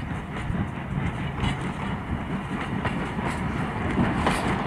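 Railroad passenger coaches and a caboose rolling past close by: a steady rumble of steel wheels on rail, with irregular clicks over the rail joints that grow more frequent in the second half.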